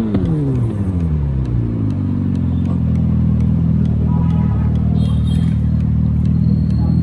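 Engine-like revving sound, most likely the simulated motorbike exhaust note played through the electric scooter's add-on speaker. The pitch falls away over the first couple of seconds, settles into a steady idle-like hum, and rises briefly again near the end.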